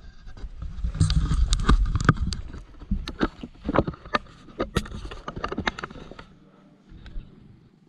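Camera handling noise: a low rumbling rustle as the camera is moved about, then a run of sharp knocks and clicks for a few seconds as it is set down, dying down near the end.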